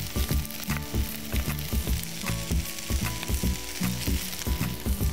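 Fried rice sizzling in a hot frying pan as it is stirred with a wooden spatula, with frequent low knocks of the spatula against the pan.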